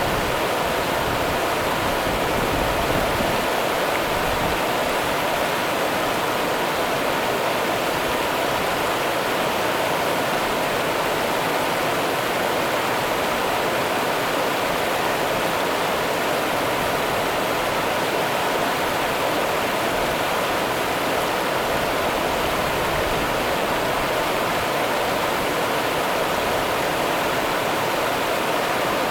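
Rio Grande river water running: a steady, unbroken rush of flowing water.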